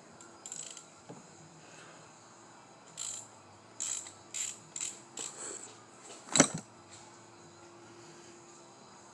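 Hand ratchet wrench ratcheting in several short bursts while ARP head studs are tightened on a Toyota 3S-GTE engine, then one sharp, loud click about six and a half seconds in.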